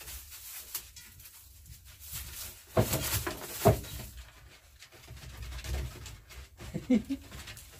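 Puppies shuffling on straw and eating at a metal food pan, with two sharp knocks or yips about three seconds in and a brief puppy whimper near the end.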